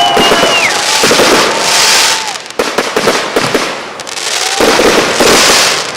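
Fireworks going off in rapid succession: dense crackling and popping in loud swells, with a few long whistles among them, one falling away about two seconds in. There is a thinner patch of separate cracks in the middle.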